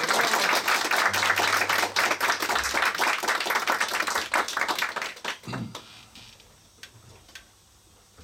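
Audience applauding after a song, a dense patter of many hands clapping that dies away about five seconds in, leaving a few scattered claps.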